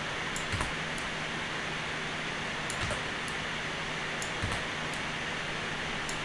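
Steady recording hiss with a low hum, broken by a few pairs of faint computer mouse clicks as UVs are selected and scaled in Maya.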